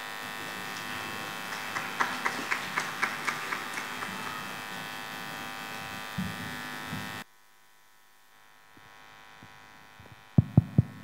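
Steady electrical hum and buzz from a public-address system, with a quick run of about a dozen sharp ticks around two to four seconds in. The hum cuts off suddenly about seven seconds in, leaving near silence. A few sharp knocks on the microphone come near the end as the reciter settles at it.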